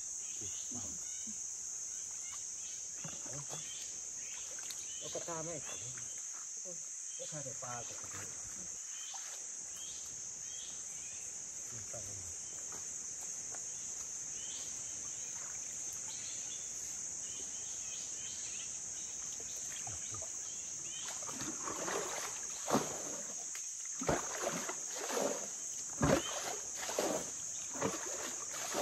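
Insects buzzing with a steady high-pitched drone. In the last third comes a run of loud water splashes and sloshes from hands or a scoop net working the shallow, muddy fish pond.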